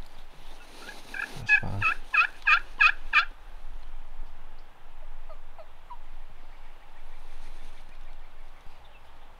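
A turkey yelping: a run of about seven evenly spaced yelps, roughly three a second, starting about a second in and lasting about two seconds.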